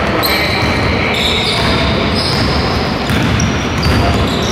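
Basketball court action: sneakers squeaking repeatedly on the gym floor and footsteps as players run, with a basketball bouncing.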